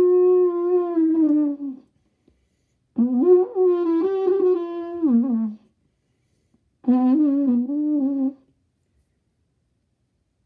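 Trumpet played in three separate wavering notes with gaps between them, each bending in pitch and sagging down at its end.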